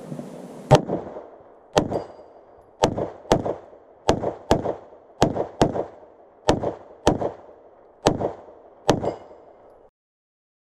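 About a dozen shots from a semi-automatic pistol, fired singly and in quick pairs roughly a second apart, each followed by a short echo.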